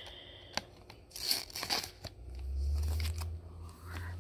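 Clear plastic binder pocket pages crinkling and rustling as a baseball card is handled and slid into a sleeve, with a small click about half a second in. From about two seconds in a low rumble of the camera being handled joins it.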